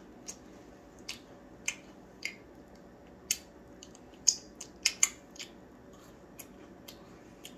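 Mouth smacks and clicks from chewing a gooey marshmallow s'more and licking the sticky marshmallow off the fingers. About a dozen short, sharp smacks at an uneven pace, the loudest in a quick cluster about four to five seconds in.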